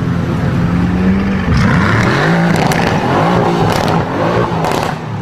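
Mercedes-AMG GT's twin-turbo V8 revving as the car pulls away at low speed, its engine note rising and falling several times.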